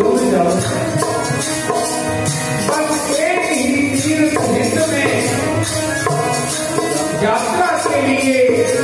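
Sikh kirtan: a man singing a devotional hymn over a harmonium's held reed chords, with hand strokes on a dholak drum keeping the rhythm.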